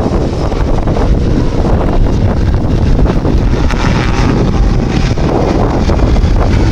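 Heavy wind buffeting the microphone: a loud, steady low rumble.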